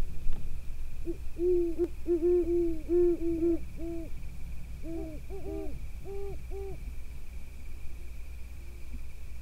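Two runs of short hooting notes, each rising and falling in pitch: about eight quick notes from a second in to four seconds in, then five or six more between five and seven seconds in. Under them run a steady low hum and a faint, steady high whine.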